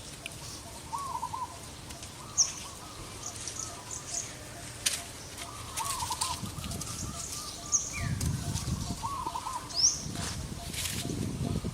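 Wild birds calling: a short trilled call repeats every two to three seconds among brief high chirps. A few sharp clicks are heard, and low rustling sets in near the end.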